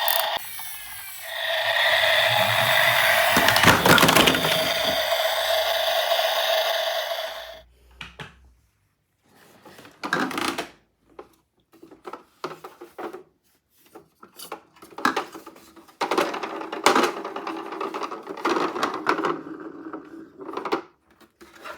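A toy's electronic sound module plays a steady tone for about seven seconds and cuts off suddenly. Then small plastic toy cars clack and rattle as they are handled, in irregular clusters of clicks and knocks.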